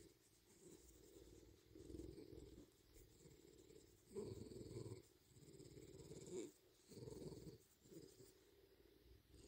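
Bobcat purring faintly, the purr swelling and fading in pulses with each breath.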